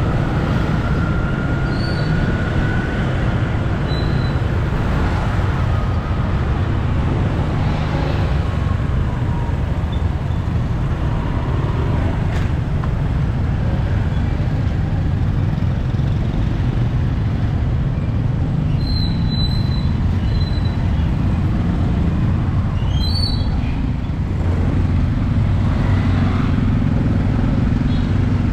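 Street traffic: the engines of passing vehicles run steadily, and a lower engine hum comes up near the end.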